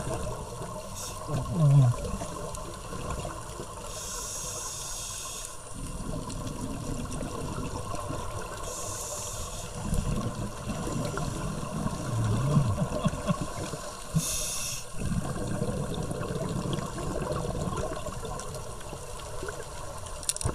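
Scuba diver breathing through a regulator underwater: three hissing inhales a few seconds apart, each followed by a long rush of exhaled bubbles.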